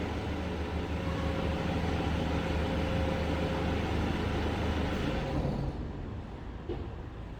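BMW F10 520d four-cylinder turbodiesel running steadily through a custom dual cat-back sports exhaust, a low, even drone that fades away after about five and a half seconds.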